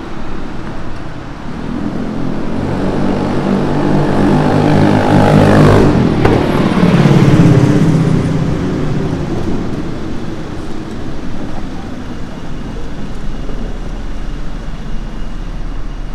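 Street traffic, with a motor vehicle passing close by: its engine sound builds over a few seconds, is loudest about six to eight seconds in, and drops in pitch as it goes past, then fades back into the general road noise.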